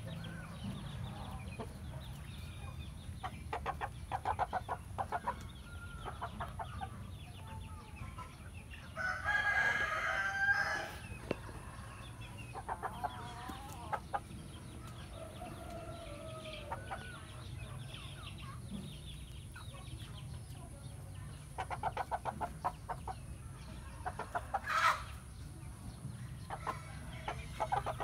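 Cuban-breed rooster crowing once, a long call about nine seconds in that is the loudest sound, with short runs of rapid clucks before and after it and a few softer calls.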